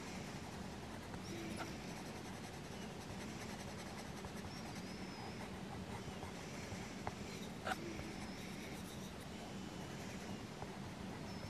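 Caran d'Ache Luminance coloured pencil shading on a colouring-book page: faint, repeated scratchy strokes, with two light clicks about seven seconds in.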